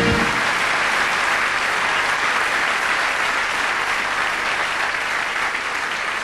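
Large hall audience applauding, steady, easing off slowly toward the end. A band's held chord stops just after the start.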